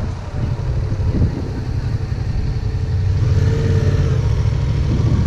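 Motorcycle engine running at low speed, heard from the rider's seat as a steady low rumble that gets a little louder about three seconds in.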